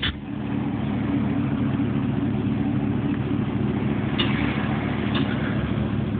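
Cadillac Escalade EXT's V8 engine idling steadily, with a faint click about four seconds in and another a second later.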